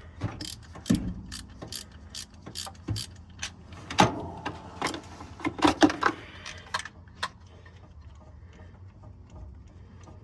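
Ratchet wrench clicking, with metal tools clinking, as spark plugs are worked out of the cylinder head of a Ford FE 360 V8. The clicks come in quick irregular runs and fade to a few faint ticks after about seven seconds.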